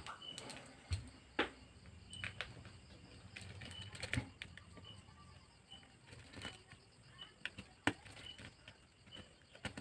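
Scattered small clicks and taps from tools and parts being handled while a smartphone is taken apart, a few of them sharper knocks. Faint short high chirps repeat about once a second through it.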